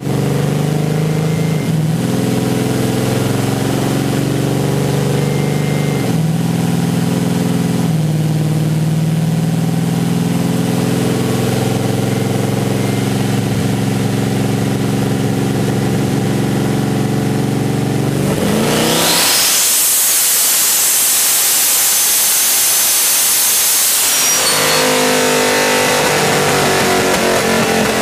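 Twin-turbocharged 427 cu in LSX V8 running at low revs on a chassis dyno, its note shifting slightly a few times. About 19 seconds in, a loud rush of intake air with a thin high whine from the 78 mm turbos takes over for about five seconds, as in a full-throttle dyno pull, then the engine note comes back as the revs drop.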